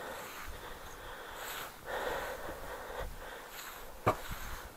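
A man breathing hard from exertion: hissy breaths about every second and a half to two seconds, with one sharp click about four seconds in.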